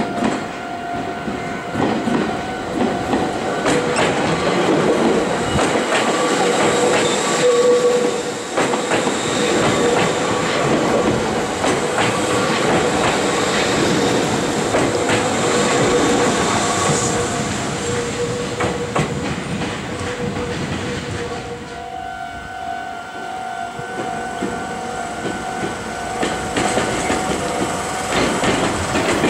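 Meitetsu electric commuter trains, first a 6800 series and then a two-unit 3100 series set, passing close by, their wheels clattering over the rail joints. Steady ringing tones sound at the start and again through the last several seconds.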